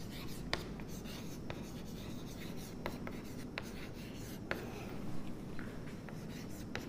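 Chalk writing on a blackboard: faint scratching of the chalk across the board, with several sharp taps as the chalk strikes it to start strokes.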